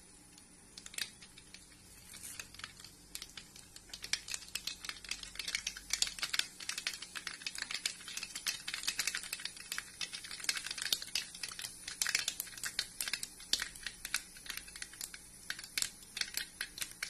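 Mustard seeds spluttering and popping in hot coconut oil in a metal kadai: a dense, irregular crackle of sharp pops. It starts sparse, thickens about four seconds in and thins near the end. The spluttering marks the tempering stage, when the oil is hot enough and the seeds are bursting.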